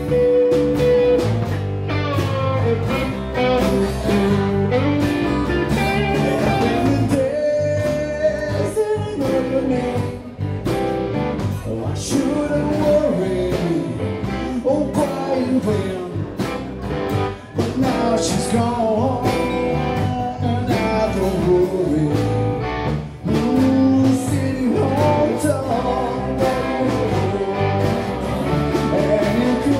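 Live band playing a blues song: strummed acoustic guitar, electric guitar and drums, with a man singing.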